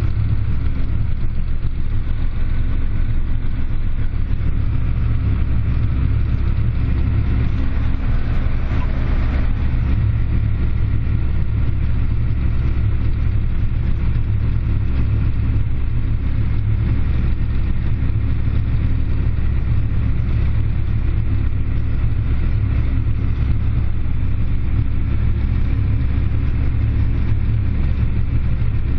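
Farm tractor's diesel engine running steadily under load as a low, even drone heard inside the closed cab while it pulls a grain cart.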